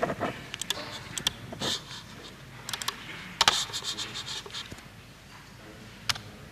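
Irregular clicks and scrapes of a computer keyboard being typed on and a handheld microphone being handled, the sharpest click about three and a half seconds in.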